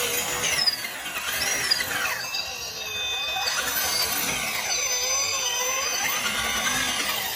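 Whine of an RC off-road truck's electric motor and gears, rising and falling in pitch as the throttle changes, with background music.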